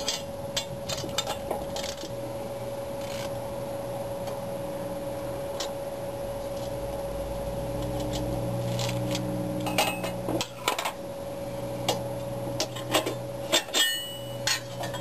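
Steel wrench clinking and scraping against a bolt and the steel trailer tongue as a 9/16 bolt is turned, in scattered sharp clicks that come thicker near the end, over a steady low hum.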